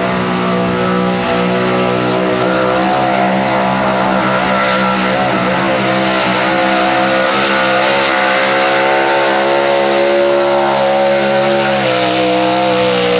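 Chevrolet 4x4 pulling truck's small-block V8 running flat out under heavy load while dragging the weight sled, holding high revs with small wavers in pitch.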